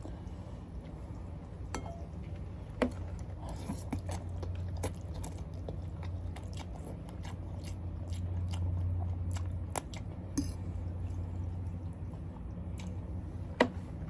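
A person chewing food close to the microphone, with many small wet mouth clicks and a few sharper clicks.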